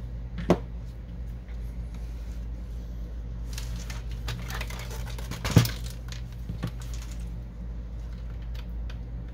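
Handling noise from a partly dismantled Canon Pixma MP560 inkjet printer: scattered light clicks and knocks of its plastic and metal parts, with a sharper click about halfway through, over a steady low hum.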